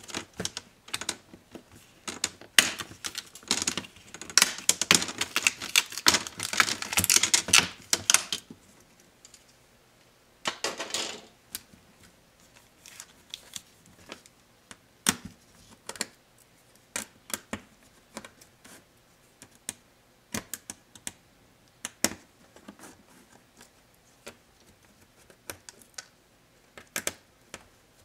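Snap-fit clips of a laptop's plastic display bezel cracking and clicking in a dense run as the bezel is pried off the lid, for about the first eight seconds. Then a short scraping burst, and scattered clicks and taps as the bare LCD panel and lid are handled.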